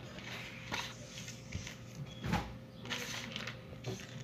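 Eating cereal with a spoon from a plastic bowl: a series of irregular clicks, scrapes and crunches, with the loudest knock about two seconds in.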